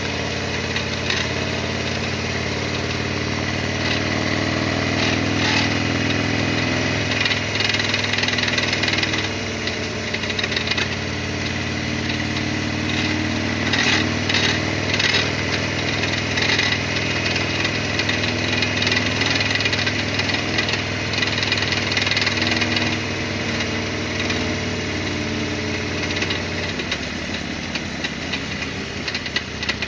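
Harley-Davidson Sportster XL1200R's air-cooled V-twin running, its pitch rising and falling a few times. Short bursts of high metallic rattling come and go over it: the chassis rattle that tidying and relocating parts under the tank has not cured.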